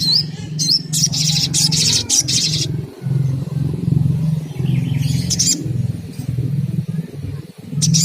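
Olive-backed sunbird calling, used as a lure to stimulate a caged bird to sing. Two short, high rising chirps come first, then a rapid high trill of about two seconds, with more chirps in the middle and near the end. A steady low hum runs underneath.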